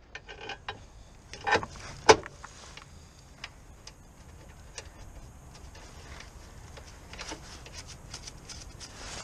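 Irregular metallic clicks and taps of hand tools and parts being handled at a car's front suspension, with two sharper knocks about one and a half and two seconds in, the second the loudest.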